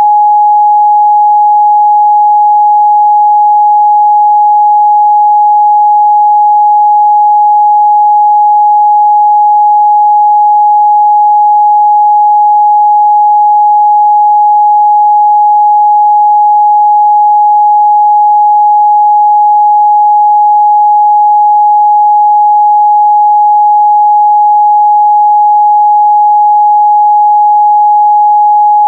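Continuous 836 Hz sine-wave test tone, one pure steady pitch at a constant loud level.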